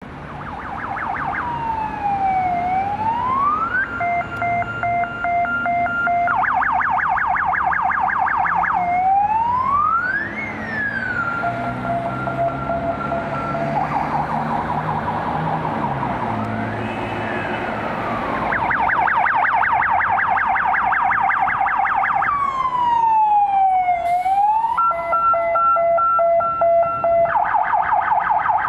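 Polish police electronic sirens cycling through their modes: a slow rising-and-falling wail, a two-note hi-lo, and a rapid yelp, each lasting a few seconds before switching. Underneath, the engines and tyres of the escorted coaches pass by.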